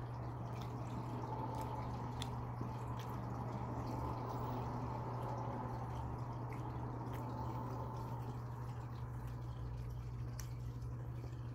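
A person chewing a mouthful of soft omelette bun with the mouth closed: small wet mouth clicks and squishes, scattered irregularly, over a steady low hum.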